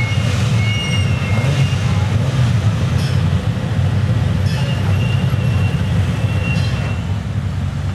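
Several race car engines running at low revs as the cars roll slowly onto the starting grid: a steady, dense low rumble. Short high-pitched squeals come over it twice, near the start and again about halfway through.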